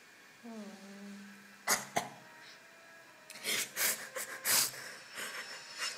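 A teenage girl crying: a drawn-out crying moan falling slightly in pitch about half a second in, then sharp sniffs and a run of gasping, sobbing breaths.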